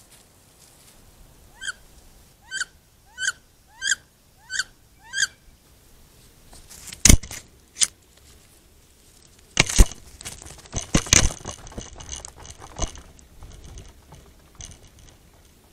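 A bird calling six times, each a short squeal that rises in pitch, about two-thirds of a second apart. A few seconds later come two sharp clicks, then a few seconds of crackling and rustling.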